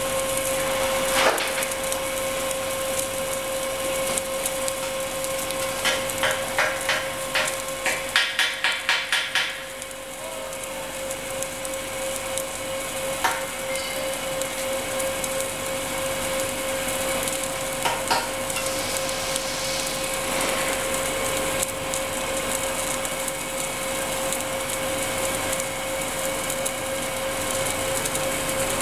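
An automated pipe-welding station running with a steady hum, a constant tone and a hiss. Starting about six seconds in there is a rapid series of sharp clicks and knocks, a few a second, lasting about three seconds, with a few single clicks later on.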